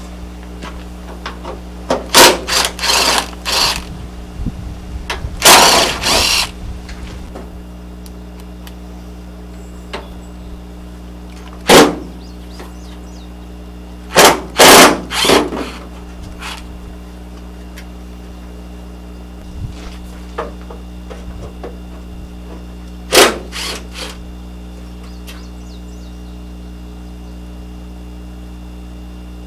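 Cordless power driver with an 8 mm socket running in short bursts, spinning out the radiator-support bolts. There are several quick runs a few seconds in and one longer run, then single bursts with quiet gaps of several seconds between them, all over a steady low hum.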